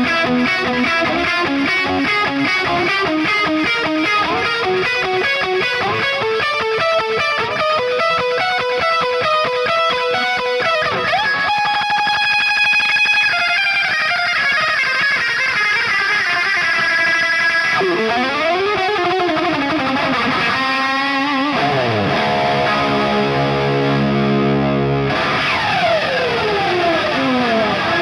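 Electric guitar with a Warman Zebra Classic Hot humbucker, played through heavy distortion. Fast note runs give way to held notes, then swooping bends up and down, a held low chord, and falling pitch glides near the end.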